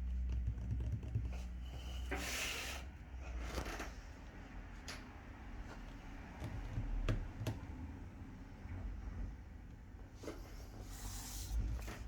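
Scattered clicks of laptop keyboard keys being typed and tapped, with two short rustling bursts, one about two seconds in and one near the end, over a low handling rumble.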